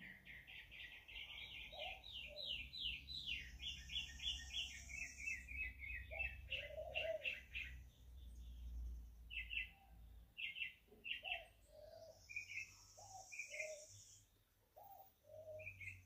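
Wild birds singing: a fast run of chirps for about the first six seconds, then scattered separate chirps, with a high buzzy trill twice and lower short notes among them, over a faint low rumble.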